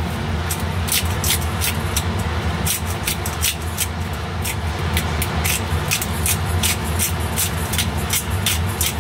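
Disposable pepper grinder being twisted by hand, cracking whole peppercorns in a quick run of crisp clicks, about three a second, over a steady low hum.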